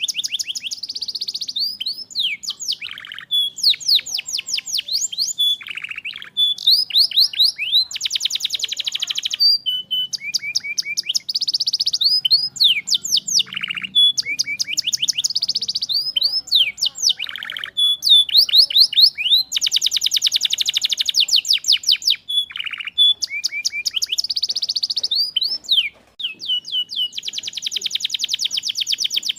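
Canary singing a long, continuous song of rapid trills, each phrase a fast run of repeated notes, changing to a new phrase every second or two, with a brief break near the end.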